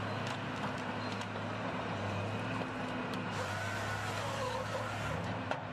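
Tigercat 724D feller buncher's diesel engine running steadily under work, with scattered light cracks and knocks.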